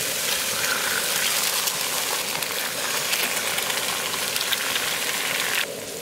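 Eggs and meat sizzling and crackling in hot oil on a Coleman camp griddle, with fresh eggs just cracked onto it. The sizzle drops abruptly to a quieter level near the end.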